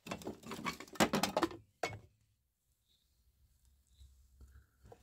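Rapid clattering and rustling of loose objects and debris, then a single sharp knock just before two seconds in, then mostly quiet.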